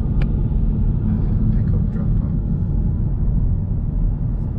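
Steady rumble of a convertible Ford Mustang driving at speed, mostly wind and road noise rushing past.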